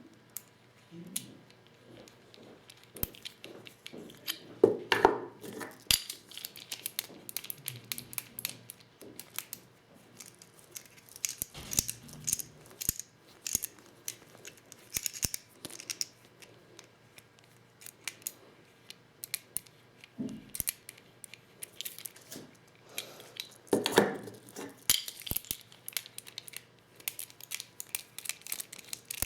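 Hand work with a 12-gauge Lee Loader and plastic shotgun shells: a steady run of small irregular clicks, scrapes and rattles, with louder knocks about five seconds in and again near the end.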